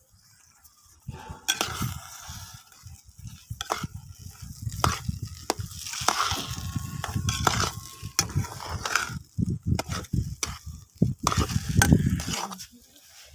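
A slotted metal spatula stirring and mashing thick semolina halwa in a metal pan over a wood fire: irregular scrapes and clicks of metal on metal with some sizzling and a low rumble underneath. It starts about a second in and stops shortly before the end.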